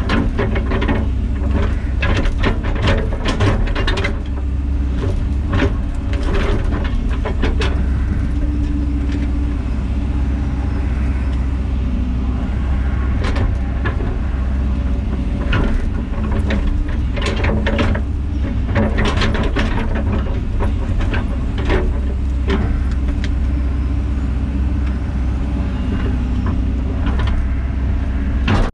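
Diesel engine of heavy construction machinery running steadily, with repeated clanks and knocks from the machine working throughout.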